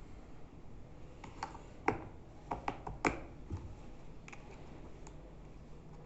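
Scattered sharp plastic clicks and taps, about a dozen, loudest around two and three seconds in, as batteries are fitted into a wireless keyboard's battery compartment.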